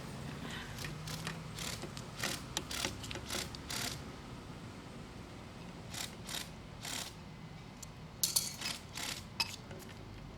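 Hand tools working on metal pipe fittings: irregular sharp metallic clicks and scrapes, coming in three short clusters.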